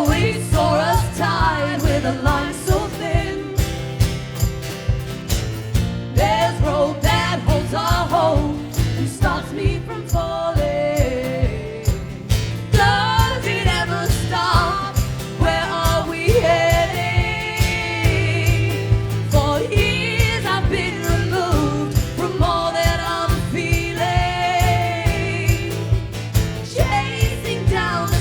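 Live music: a song sung over a steady strummed rhythm.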